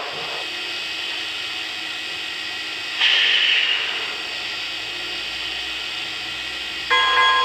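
Sound system of a Lionel Vision 2-10-10-2 O gauge model steam locomotive, standing still: a steady mechanical background sound, with a hissing burst about three seconds in lasting about a second. Near the end, a multi-tone chime steam whistle starts to blow.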